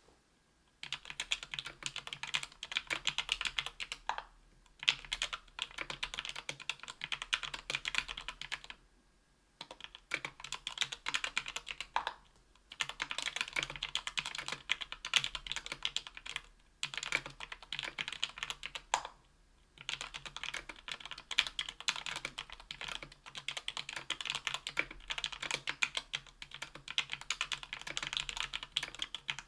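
Typing on a Tofu 60% aluminium mechanical keyboard with JWK H1 78 g linear switches lubed with Krytox 205g0, an aluminium plate and GMK keycaps: fast runs of keystrokes lasting a few seconds each, broken by short pauses.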